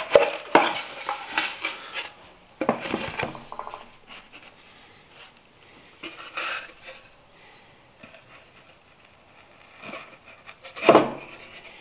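Wooden boards and a plywood panel being handled and fitted together on a cast-iron table saw top: scattered knocks and scrapes of wood on wood and on metal, with the loudest knock near the end.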